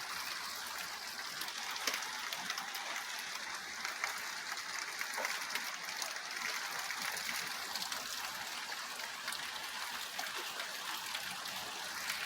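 Light rain falling and water running after a thunderstorm: a steady hiss with a few faint ticks.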